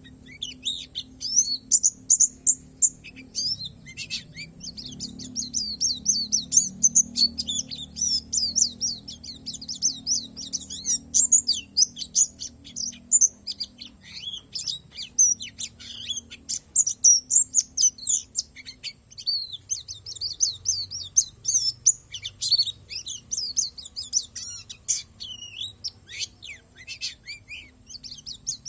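White-eye (pleci) of the Bornean palas type singing a fast, high-pitched twittering song of quick chirps and trills, almost without a break, over a faint low hum.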